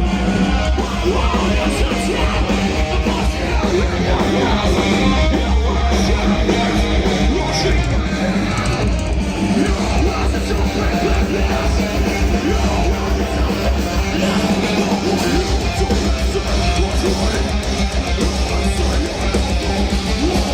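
Metalcore band playing live at full volume, led by heavy electric guitars.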